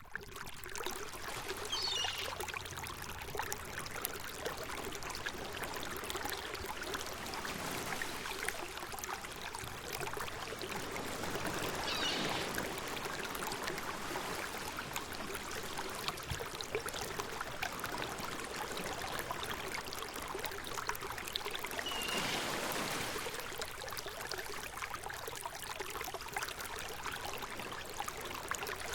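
Flowing water running steadily, like a river or stream, with a short, high, wavering sound about every ten seconds.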